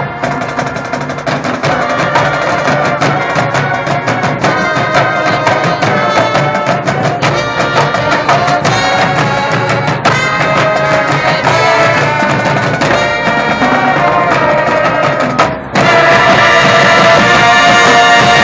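High school marching band playing: brass and woodwinds over fast drumline hits, building to a loud held chord that begins near the end and cuts off sharply.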